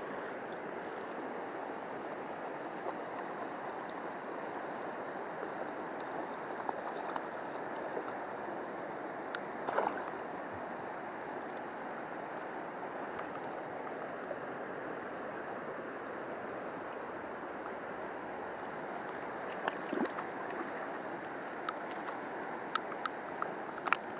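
Steady rush of a river running over nearby rapids, with a few brief knocks, the loudest about ten seconds in and a small cluster near the end.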